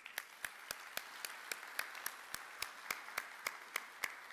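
Audience applauding, with one person's crisp claps close to the microphone standing out over it, evenly paced at about four a second.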